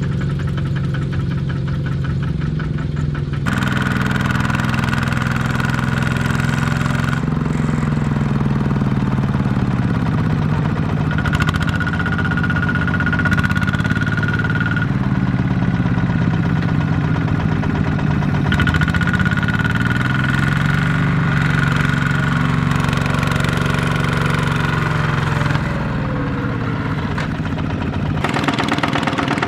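Kubota walk-behind tractor's single-cylinder diesel engine running under load, its pitch rising and falling repeatedly as it is revved to drive the tractor and its trailer out of deep mud. A high steady whine joins in for some stretches, and the sound changes abruptly several times.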